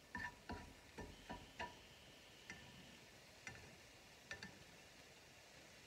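Spatula tapping and scraping against a nonstick frying pan as scrambled eggs are pushed around: a quick run of light clicks in the first second and a half, then a few scattered taps.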